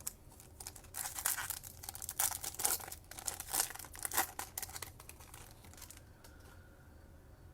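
A Topps Chrome trading-card pack wrapper being torn open and crinkled in the hands, a run of rustles and crackles from about a second in until about five seconds in.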